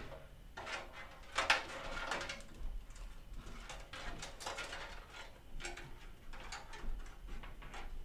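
Scattered clicks, light knocks and rustling as cables are pulled through an open PC case and the case is handled, the loudest knock about one and a half seconds in.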